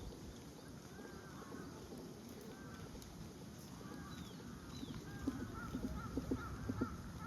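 Outdoor birds calling: short, repeated pitched calls that settle into a regular series of about two a second near the end, with two thin, high descending notes around the middle.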